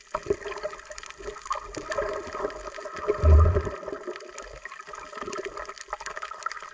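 Water gurgling and sloshing around a submerged camera, heard underwater, with many small clicks and crackles and a loud low thump about three seconds in.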